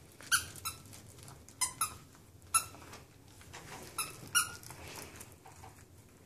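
Dog chewing a plush squeaky toy, the squeaker giving about seven short, sharp squeaks in irregular bursts, some in quick pairs.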